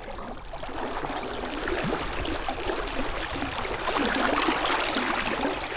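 Fast-flowing river water rushing and splashing as someone wades back across the current.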